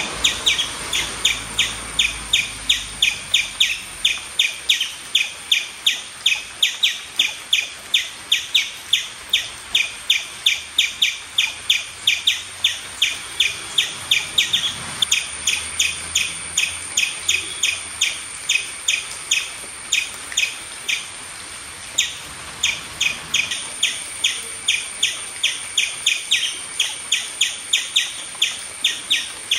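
Indian palm squirrel chirping in a long, even series of short, sharp, high chirps, about three a second, with a brief pause about two-thirds of the way through.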